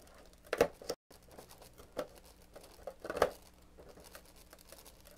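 Fingers pushing in and tearing open a perforated cardboard advent-calendar door: scattered sharp cardboard pops, taps and crinkles, loudest about half a second in and again about three seconds in, with a brief dead gap about a second in.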